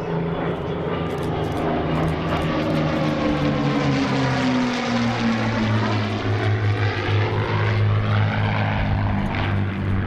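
Three P-51 Mustangs flying over in formation, their Packard Merlin V-12 piston engines running; the engine note drops in pitch about halfway through as they pass overhead.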